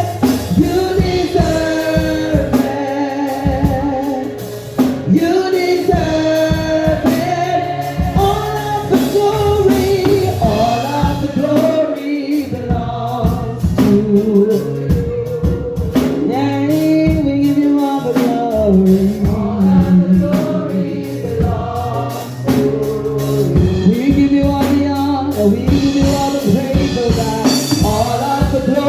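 Gospel choir singing with instrumental accompaniment: a steady bass line under the voices and frequent drum hits.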